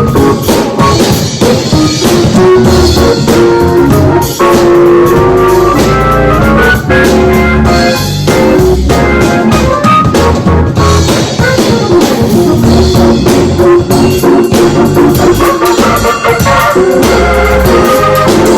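Music with organ and a drum kit playing a steady beat.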